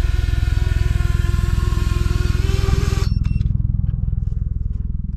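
10-inch quadcopter's Axisflying AZ3115 brushless motors and propellers running on the ground after landing, a steady whine over a low pulsing rumble. About three seconds in the whine cuts off, and the low rumble fades away.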